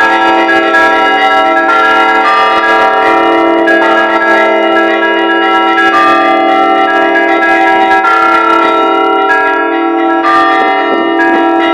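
Russian Orthodox podzvonnye (middle-sized) church bells struck by hand by a bell ringer in a quick, continuous pattern. Many bell tones ring on and overlap, renewed by several strikes a second.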